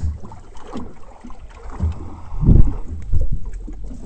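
Wind buffeting the microphone, with a few loud low thumps, the loudest about two and a half seconds in, as a hooked fish is reeled to an aluminium boat and lifted over the gunwale.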